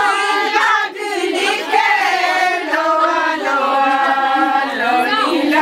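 A group of women singing together without instruments, with long held notes in the middle.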